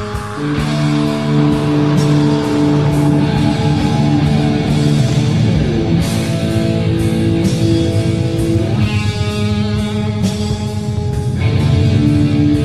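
Early-1980s heavy metal track: electric guitars holding notes over a drum kit, with a pitch slide about six seconds in.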